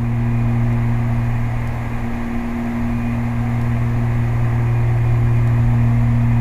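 Beechcraft Baron 58's twin piston engines and propellers droning steadily in level cruise, heard from inside the cockpit as a loud, even hum.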